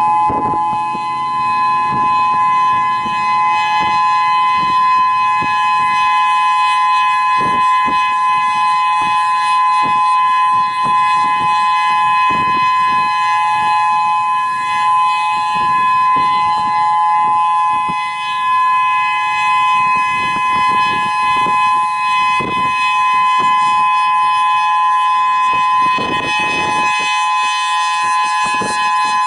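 Whelen 3016 rotating electronic warning siren sounding its steady alert tone, a loud two-note chord held at a constant pitch after winding up. Wind gusts buffet the microphone underneath it.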